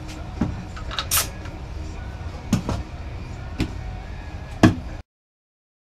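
Workbench handling sounds: scattered knocks and clicks of tools, a plastic jar and wood pieces being picked up and set down, the loudest knock near the end, with a short sharp hiss about a second in. A low steady hum runs underneath, and the sound cuts off abruptly to silence about five seconds in.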